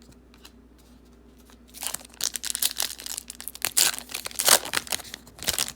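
The wrapper of a football trading card pack being torn open and crinkled. It starts about two seconds in as a dense run of crackling rips and rustles, and stops just before the end.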